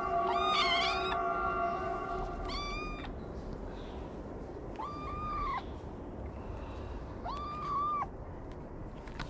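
A kitten meowing four times, short high-pitched calls of under a second each, the first higher and wavering; begging meows at the person who feeds it. A steady hum runs under the first two seconds or so and then fades.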